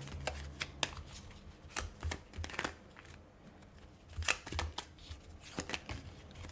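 A deck of tarot cards being shuffled by hand: irregular soft clicks and slides of the cards, with busier bursts about two and four seconds in.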